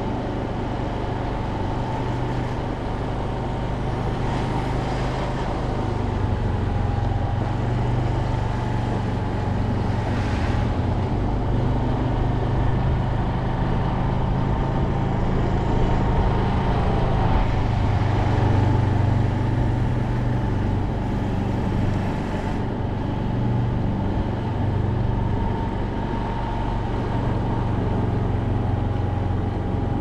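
A vehicle's engine and road noise as it drives slowly along a narrow road: a steady low drone that swells a little now and then.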